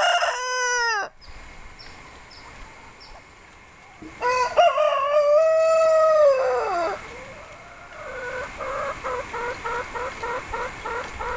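Rooster crowing: the tail of one crow at the start, then about four seconds in a full crow of about three seconds that drops in pitch at its end. It is followed by a quick run of short clucks, about three a second.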